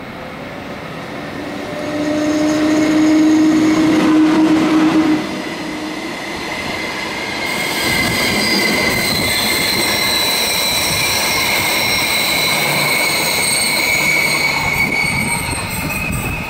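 A Rhaetian Railway Ge 4/4 II electric locomotive hauling Glacier Express coaches passes close by on the adjacent track. A steady hum builds as the locomotive comes alongside and drops off suddenly about five seconds in. The coaches then roll past with high wheel squeal.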